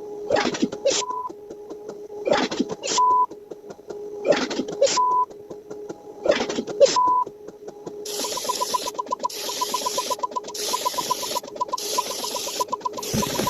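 Looped mechanical sound effect, a clatter of clicks with a short beep, repeating about every two seconds. About eight seconds in it changes to a faster, denser clatter with rapid short beeps, like a printer running.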